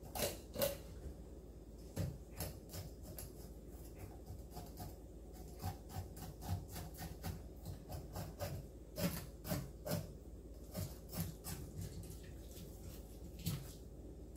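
Knife filleting a small striped bass on a wooden cutting board: faint, irregular scraping and clicking as the blade works along the fish and touches the board.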